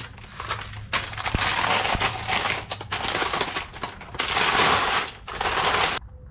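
Plastic packaging bag crinkling and rustling loudly in bursts as a hood bug shield is pulled out of it, stopping abruptly near the end.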